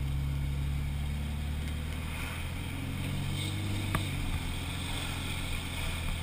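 Straight-piped (muffler-deleted) Cummins inline-six turbodiesel of a Dodge Ram 2500, heard from inside the cab with the windows up while driving: a steady low engine and exhaust drone. A single sharp click sounds about four seconds in.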